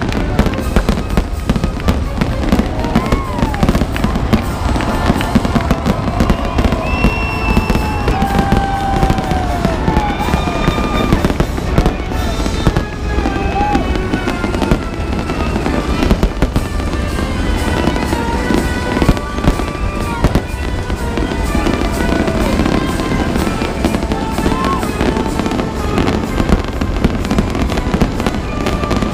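Fireworks display going off in rapid, unbroken succession, one bang and crackle after another, with music playing along underneath.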